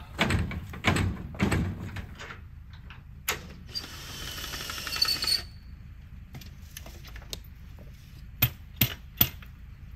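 A steel mesh ramp gate on a utility trailer is swung up and shut, clanking and rattling several times in the first two seconds. After that come scattered clicks and a brief hiss, then three sharp knocks near the end as the trailer is readied for towing.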